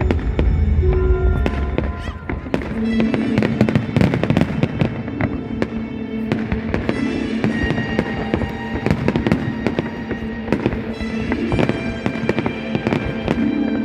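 Fireworks salute: shells bursting and crackling in quick, dense succession, with music playing alongside.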